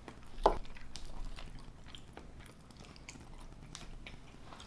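Close-miked mouth sounds of a person chewing chili cheese fries, soft and wet, with scattered small clicks and one louder click about half a second in.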